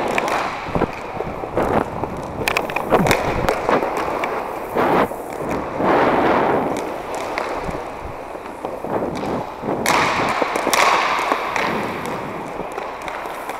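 Inline hockey play on a plastic sport-court floor: skate wheels rolling, with many sharp clacks and thuds of sticks and puck scattered irregularly throughout.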